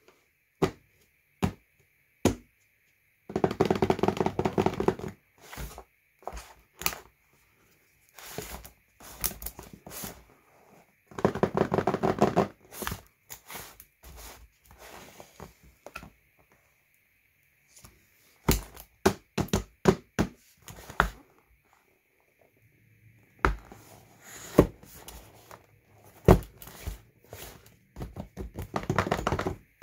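Hands handling a cardboard box of wrapped gummy candies: scattered taps and knocks on the box, with two longer bursts of quick rubbing and crinkling, about three and eleven seconds in.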